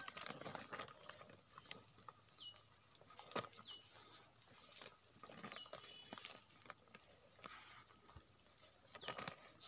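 Faint ticks and rustles from dogs, puppies and cats feeding and moving over dry grass, with a few short, high chirps that fall in pitch.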